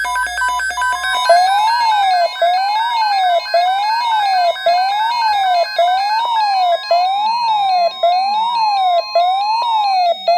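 Electronic emergency-alert attention signal: a quick run of stepped beeping tones, then a synthesized siren tone rising and falling about once a second over a steady higher tone. It stops just before the next alert message.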